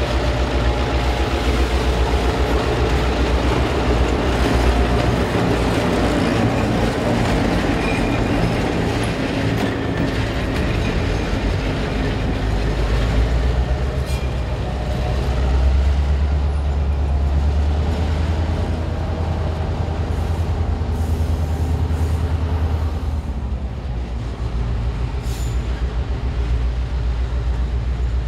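Slow freight train going by: hopper cars rolling over the rails and a diesel locomotive's engine running. The engine is loudest about halfway through as the locomotive passes close, then fades as the train moves off.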